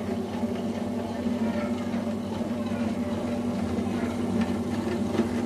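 Panasonic MK-SW200 wet grinder running: its motor hums steadily as the steel drum turns under the grinding stones.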